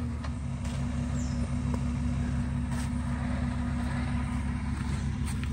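A vehicle engine idling steadily, a low even hum, with a few faint clicks over it.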